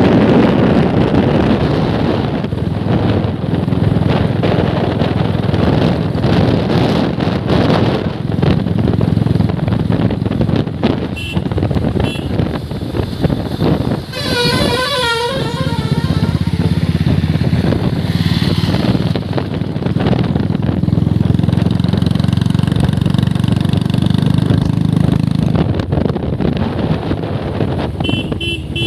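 Royal Enfield Bullet motorcycle running at riding speed, its single-cylinder engine under a steady rush of wind on the microphone. About halfway through, a horn sounds with a warbling tone for about a second and a half while the engine eases off, and short high beeps come twice, shortly before it and again near the end.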